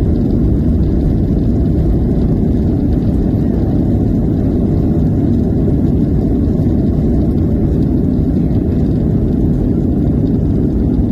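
Inside the cabin of a Boeing 737 on its takeoff roll: the jet engines at takeoff thrust and the rumble of the wheels on the runway, a loud, steady, deep noise.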